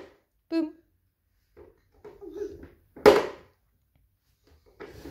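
Plastic ride-on toy car knocking and rolling on a laminate floor as a toddler pushes it, with a loud knock about three seconds in. A short child's vocal sound comes about half a second in.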